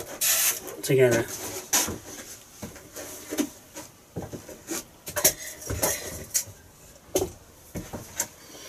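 Irregular clicks, knocks and light clatter of objects being handled and set down, with footsteps as someone moves about a small room.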